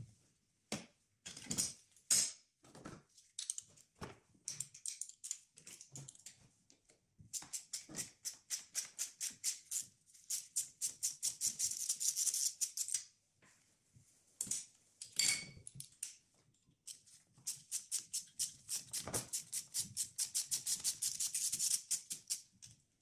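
Ratchet wrench clicking as bolts are turned, in two long even runs of about six clicks a second: the first about seven seconds in, the second after a short pause. Before the first run come scattered clinks and knocks of tools.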